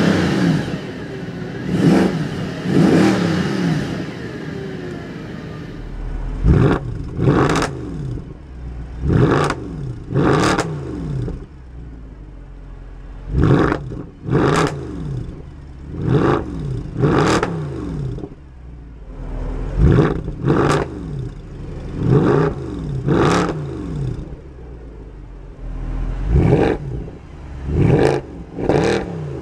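Mercedes-Benz C63 AMG Edition 507's 6.2-litre naturally aspirated V8 being revved while standing still. For the first few seconds it is heard from inside the cabin. Then come quick throttle blips through the quad exhaust, mostly two at a time, each rising sharply and dropping back to idle.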